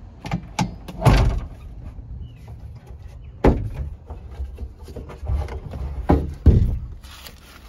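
Clunks and sharp knocks in a truck cab as an axe is unclipped from its rubber holder clamps on the back wall behind the seat and pulled free. There are half a dozen knocks; the loudest come about a second in, about three and a half seconds in and near the end.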